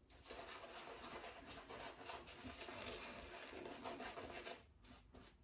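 Shaving brush working shaving-soap lather, a soft wet swishing and rubbing that stops about four and a half seconds in.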